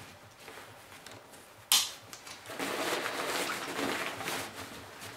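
A plastic backpack buckle snaps shut with one sharp click a little under two seconds in, followed by about two seconds of nylon fabric rustling as the pack is handled.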